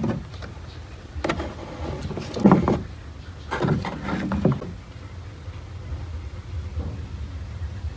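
A few knocks and scraping rustles, loudest about two and a half seconds in and again around four seconds, over a steady low rumble; they die down in the last few seconds.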